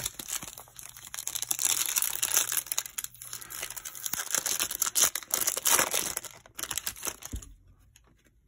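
Plastic wrapper of a trading-card pack being torn open and crinkled by hand, a dense crackling that comes in several spells and stops about seven seconds in.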